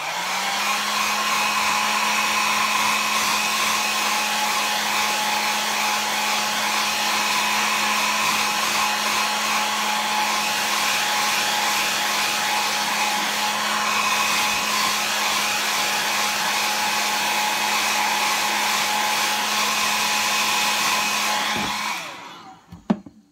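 Handheld hair dryer running steadily, an even rush of air over a constant motor hum with a faint steady whine. It cuts off about a second before the end, followed by a single click.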